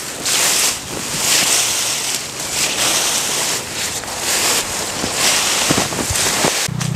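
Tall grass and brush swishing and rustling as people push through it on foot, in repeated swells about one per stride.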